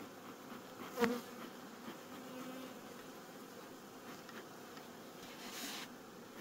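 Honey bees buzzing steadily from a crowded open hive, with bees all the way down to the bottom box. A brief sharp knock comes about a second in, and a short hiss of a bee smoker's puff comes near the end.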